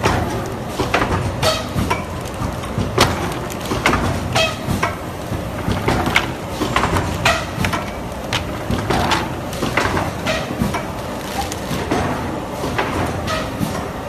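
CNC waste-stripping machine running: irregular knocks and clatter, several a second, over a steady low rumble as it strips the waste out of die-cut cards.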